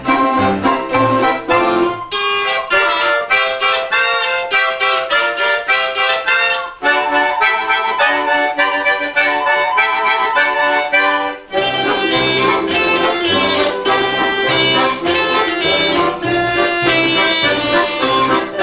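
Folk-instrument ensemble playing a lively tune with sustained reedy chords. The low bass part drops out about two seconds in and comes back about twelve seconds in.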